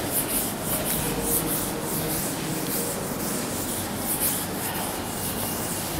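Handheld board eraser rubbing over a chalkboard in quick, repeated back-and-forth strokes, wiping off chalk writing.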